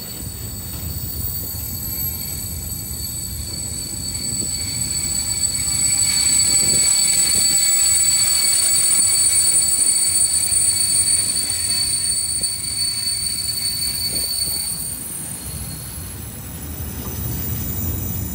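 A train passing by the trackside, growing louder to a peak in the middle and fading again, a low rumble under a high, steady ringing tone.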